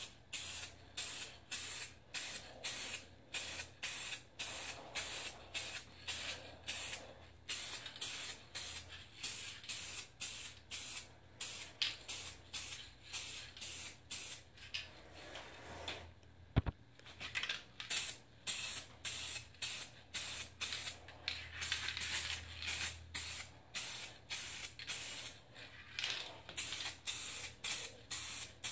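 Aerosol spray paint can hissing in short repeated bursts, about two a second, as paint is sprayed onto a plastic bumper cover. It pauses briefly about two thirds of the way through, with a single click.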